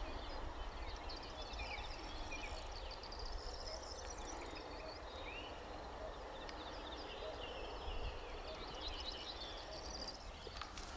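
Several birds singing and calling, a dense scatter of short high chirps and trills, over a low steady rumble.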